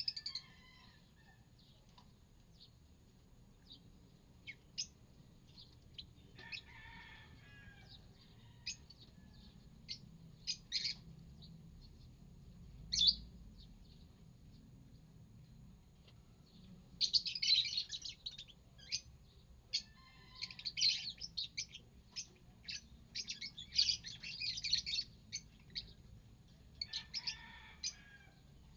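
Pet lovebirds chirping: short, sharp, high calls scattered at first, then coming in dense flurries in the second half.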